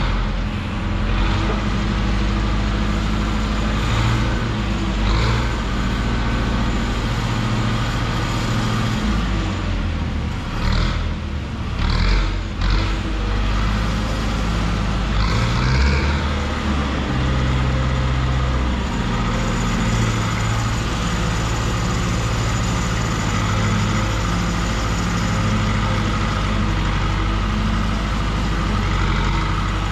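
Zetor 7245 tractor's four-cylinder diesel running steadily while the wheat trailer is tipped to unload, with a few brief clunks about twelve seconds in.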